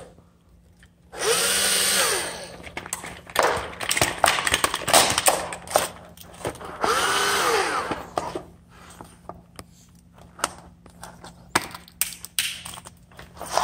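Cordless drill run in short bursts against a plastic headset, its motor whirring up and winding down twice, with rough grinding between. Scattered plastic clicks and knocks follow near the end.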